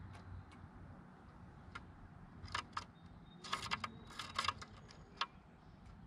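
A northern mockingbird pecking at and clinging to a wire-cage suet feeder: sharp taps and clicks, a few scattered at first, then quick clusters around the middle.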